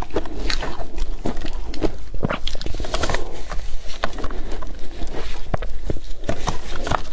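Close-miked crunchy bites and chewing of yellow powdery ice, a rapid irregular series of sharp crunches.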